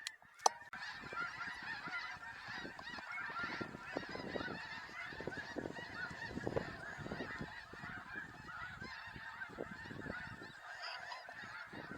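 A large flock of snow geese calling, a dense chorus of many overlapping high-pitched honks without a break. A single sharp click sounds about half a second in.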